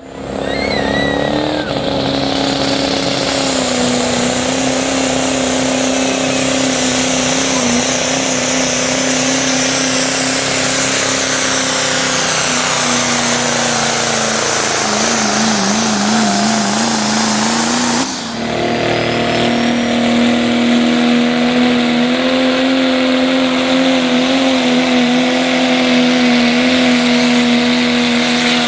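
Four-wheel-drive diesel pickup trucks at full throttle pulling a weight sled, their engines held at high, steady revs. Near the end of the first pull the engine pitch sags and wavers. The sound then cuts suddenly to a second truck's pull, with the engine again at steady high revs.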